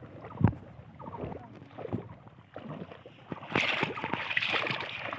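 Water splashing and sloshing as people wade knee-deep and push and plunge bamboo polo basket traps into the water, with a sharp knock about half a second in; the splashing gets louder and denser from about three and a half seconds in.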